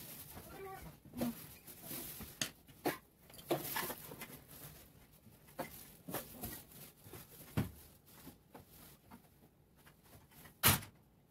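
Coloured pencil scratching on notebook paper, broken by irregular light knocks and clicks of the pencil and hands against the spiral notebook and wooden table, with one sharper knock near the end.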